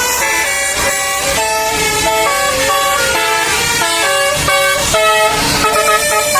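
Bus 'telolet' multi-tone air horn playing a melody: loud horn notes that step from pitch to pitch every fraction of a second, several sounding together.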